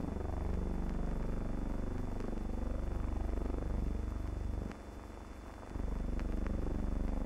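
A low, steady mechanical rumble whose pitch wavers, dropping in level for about a second a little past the middle, with a few faint clicks near the end.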